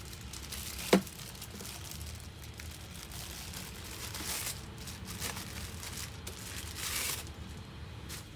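Rustling and crinkling of packaging and parts being handled during assembly, with one sharp click about a second in and a few short rustles later on.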